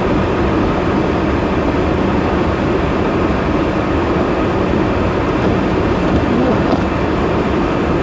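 Steady noise of a car driving through deep snow, heard from inside the cabin: engine and tyres running without a break.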